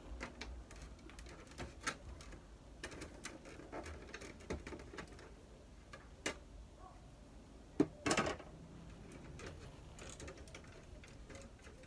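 Plastic casing of a Samsung ML-1660 laser printer being pried apart by hand: scattered clicks, knocks and rattles of the cover and panels, with a sharp snap about eight seconds in followed by a brief scraping rattle.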